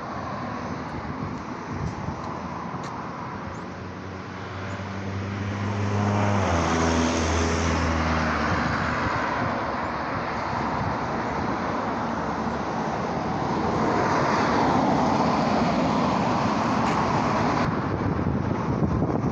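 Street traffic: a vehicle's engine hum drops in pitch as it passes about six seconds in, with tyre and road noise, and another vehicle swells past later on.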